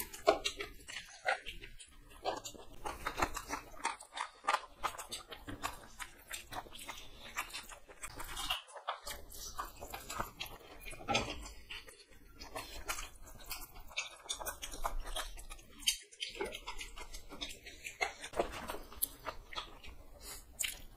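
Two people chewing and biting, eating chicken leg pieces and then chowmein noodles with their hands: a dense, irregular run of small mouth clicks and smacks.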